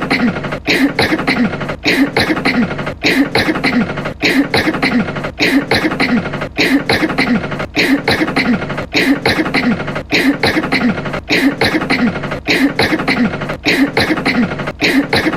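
A character's voice coughing over and over, a short cough repeated about once a second, each one cut off sharply before the next.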